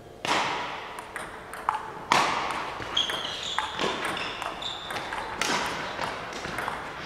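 Table tennis rally: the celluloid ball clicking off bats and table, the hits echoing in a large hall, with a few short squeaks of shoes on the court floor as the players move.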